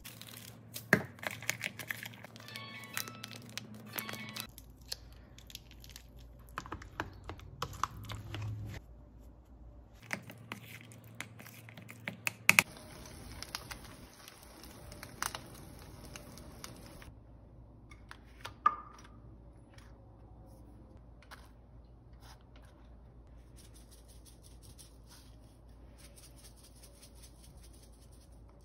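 Kitchen food-prep sounds: a run of sharp clicks and knocks from hands, utensils and containers. About 13 seconds in comes a crackling sizzle from freshly baked rolled tortillas on a parchment-lined tray, lasting a few seconds, and after it a few scattered light ticks.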